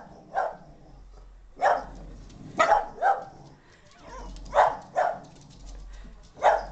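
Boston Terrier barking in alarm at an unfamiliar figure: seven short, sharp barks, two of them coming in quick pairs.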